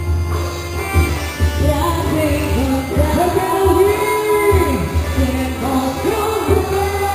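Music with a singer's voice gliding between held notes over a steady low beat.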